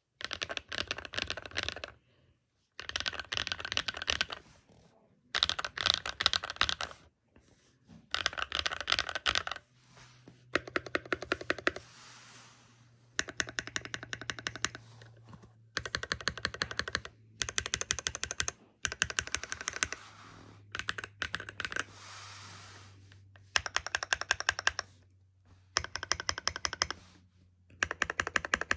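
Typing on a compact mechanical keyboard: fast runs of plastic keystroke clacks in bursts of one to two seconds, with short pauses between them.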